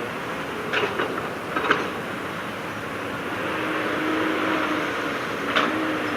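Heavy earthmoving machinery's diesel engine running steadily, with sharp metallic clanks about a second in, again just before two seconds, and near the end.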